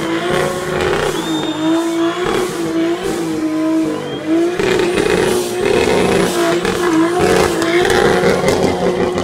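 Pickup truck's engine held at high revs during a spinning burnout, its pitch dipping and climbing back again about every second, over the noise of the spinning rear tyres.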